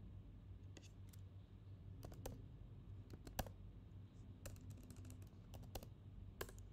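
Computer keyboard keys clicking in short irregular bursts as a web address is typed, faint over a steady low hum.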